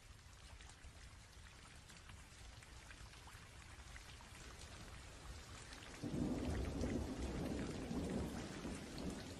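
Rain falling, a faint hiss with scattered drop ticks that slowly grows louder. About six seconds in, a low rumble of thunder comes in and rolls on for the last few seconds.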